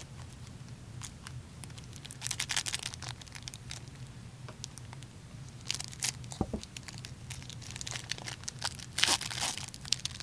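Pacific Heads Up hockey card packs being torn open and their wrappers crinkled, in short rustling bursts about two, six and nine seconds in.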